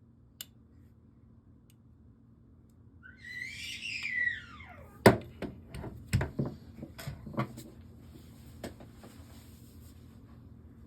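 A brief whistle-like squeal that rises then falls, then a string of sharp clicks and knocks as small metal gun parts and tools are handled during trigger installation in an AR-15 lower, the loudest knock about five seconds in.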